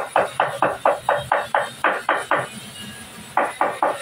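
Rapid, even hammer blows on wood, about four a second, stopping about two and a half seconds in, then three more near the end.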